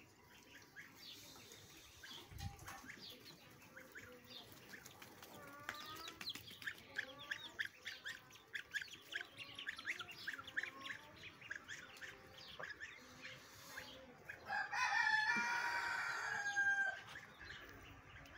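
Small birds chirping in quick, repeated short notes, then a rooster crows once about fifteen seconds in, a long call of a bit over two seconds that falls away at the end and is the loudest sound.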